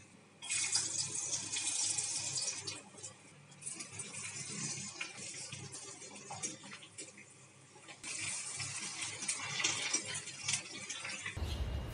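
Hot oil sizzling as pieces of food deep-fry in a kadai, the hiss easing twice and rising again about eight seconds in, with light scrapes of a wire spider strainer. It cuts off just before the end.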